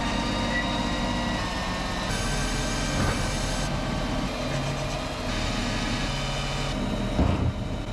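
Tractor engine running steadily while its hydraulics tip a Stewart GX grain trailer, the raised bed emptying grain onto the shed floor. The sound changes abruptly a few times along the way.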